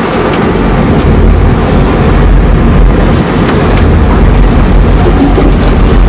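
Steady low rumble of a trolling boat's engine under wind noise on the microphone and water rushing past the hull.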